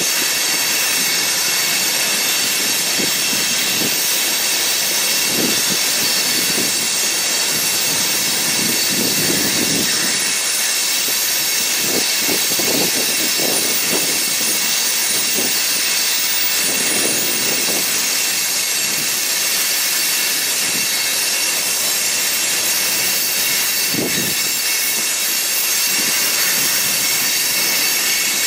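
Freight train rolling by, a steady rush of steel wheels on rail with faint high, steady squeal tones over it.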